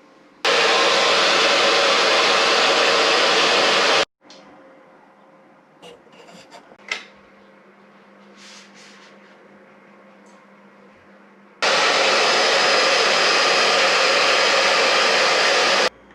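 Electric heat gun blowing in two bursts of about four seconds each, switched on and off abruptly, warming vinyl graphics to soften them. Light handling rustles and clicks between the bursts.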